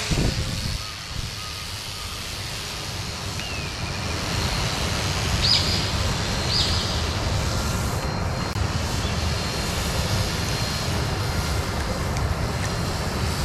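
Electric motor and 10-inch propeller of a small home-built radio-controlled plane running steadily in flight just after a hand launch, heard under a steady rushing noise. A couple of short high chirps come about halfway through.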